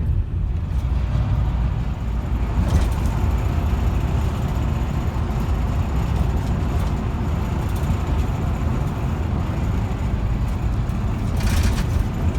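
A car driving along a road: a steady low rumble of engine and road noise, with a brief knock about three seconds in and a short rattle near the end.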